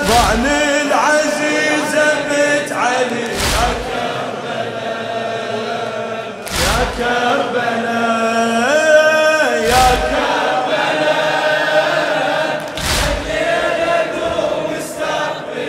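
Male voices chanting a Shia latmiyya lament refrain in unison, cut about every three seconds by a loud, sharp chest-beat (matam) struck together by the mourners, five times in all.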